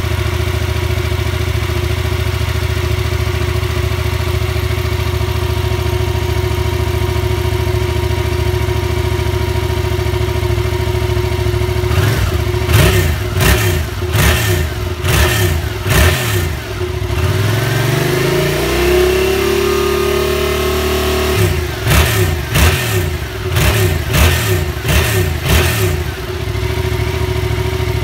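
2015 Yamaha MT-07's parallel-twin engine on its standard exhaust, idling steadily, then revved about halfway through in a run of quick throttle blips, one longer rev held high for a couple of seconds, and a second run of blips. It then settles back to idle near the end.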